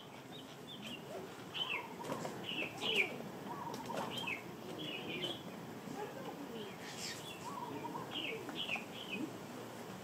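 Small songbird giving short, high chirps, repeated irregularly every half second or so, over a low background murmur.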